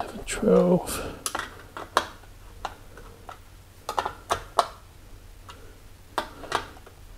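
Mounting screws of an AIO cooler's pump block being turned down over the CPU: irregular small metallic clicks and ticks, about a dozen. The screws are tightened a few turns at a time on each side so the block seats evenly.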